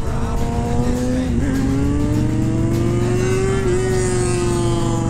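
Motorcycle engine running under way, with wind and road noise. Its pitch dips briefly about a second in, then climbs steadily as the bike pulls, and eases a little near the end.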